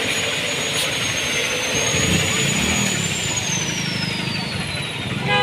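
Compressed air hissing steadily from an air line into a newly fitted tubeless motorcycle front tyre, seating and filling it. A thin high tone slides lower over the last couple of seconds.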